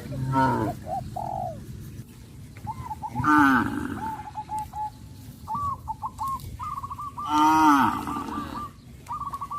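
Cattle mooing, three loud calls a few seconds apart, while a bird calls over them in runs of short repeated notes.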